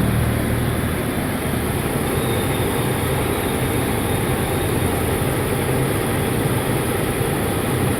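Skoda Superb 2.8-litre V6 engine idling steadily and smoothly, 'running like a baby'. The misfire caused by oil leaking into the spark plug holes has been cured by fixing the leaking cover gasket.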